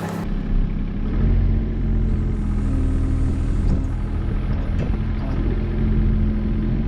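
Kobelco SR17 mini excavator's diesel engine running steadily, with a higher tone coming in twice as its hydraulics are worked to pick up the bucket on the quick coupler.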